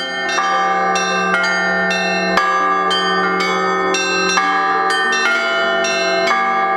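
Russian Orthodox church bells, large bronze bells rung together in a peal. Strikes fall in a steady rhythm about twice a second over the ringing of several bells of different pitches.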